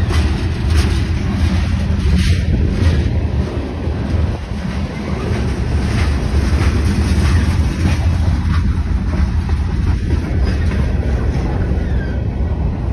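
Freight train's covered hopper cars rolling past close by: a steady low rumble of steel wheels on rail, with scattered clicks and clacks from the wheels and trucks.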